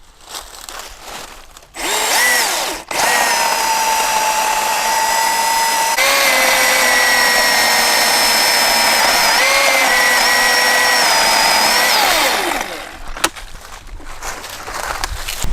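Milwaukee M18 cordless brushless chainsaw cutting into a tree trunk: a short burst of the trigger, then the chain running under load for about nine seconds as a steady high electric whine that dips briefly as it bites, and winds down with a falling whine near the end.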